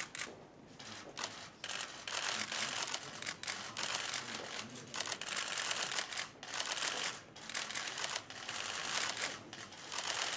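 Press cameras' shutters clicking in rapid, overlapping flurries.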